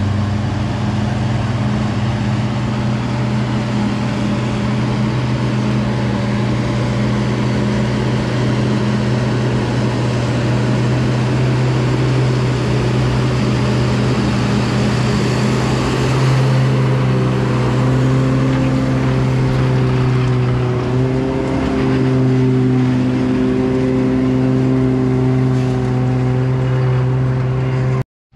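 Heavy farm-machinery engine running steadily under load, with its pitch and tone shifting a little about two-thirds of the way in. The sound cuts off suddenly near the end.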